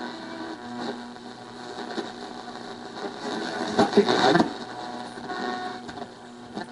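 Vintage Commodore solid-state AM/FM table radio on the AM band giving out static over a steady low hum, swelling louder a little past the middle. The loud static is the fault the owner puts down to the radio's messed-up speakers.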